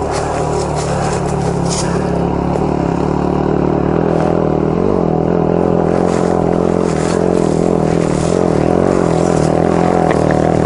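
Yamaha Serow 250's air-cooled single-cylinder engine running at steady low revs, with a brief dip about five seconds in.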